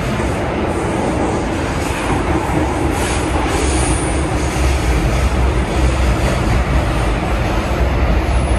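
São Paulo Metro train running, heard from inside the car: a steady rush and rumble of wheels on rails, the low rumble growing heavier about three seconds in.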